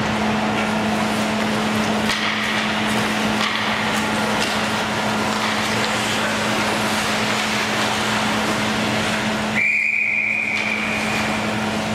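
Ice rink game noise with a steady low hum; about ten seconds in, a referee's whistle blows one long steady note lasting about two seconds, stopping play during a scramble at the goal crease.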